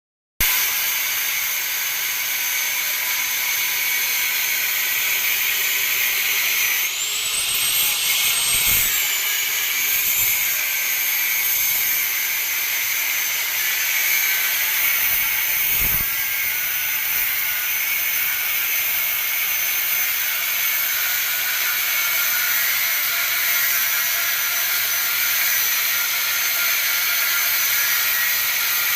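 A power tool running steadily with a high-pitched whine and hiss. Its pitch rises briefly about seven seconds in and falls back a couple of seconds later.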